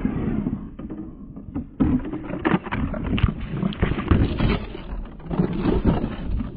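1/6-scale Rochobby Willys RC jeep driving over rough winter trail ground: irregular crunching and knocking from the tyres and chassis.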